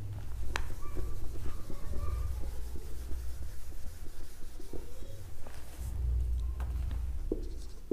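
Hand-held duster wiping a whiteboard clean, with repeated rubbing strokes across the board.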